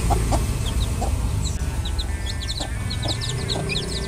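Caged chicks cheeping in short, high, scattered calls over a steady low rumble of background noise. This is unfiltered recording noise that has not yet had noise reduction applied.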